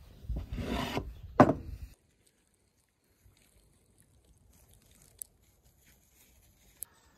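Hands rubbing and tossing sliced onion and tomato in a clay bowl: a rustling rub lasting about a second and a half, with a sharp knock near its end, then near silence broken by two faint ticks.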